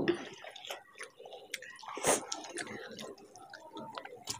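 Fingers kneading rice and curry on plates and eating by hand: soft wet squishing and clicking, with one louder wet smack about two seconds in.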